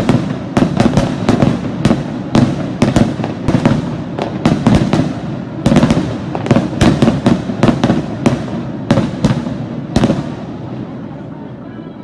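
Aerial fireworks shells bursting in a rapid barrage, several sharp bangs a second over a continuous echoing rumble. The bangs stop about ten seconds in, leaving the rumble to fade.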